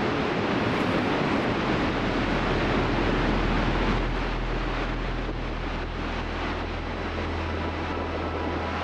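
Steady rush of a large waterfall's falling water, with a low steady hum joining in about two seconds in.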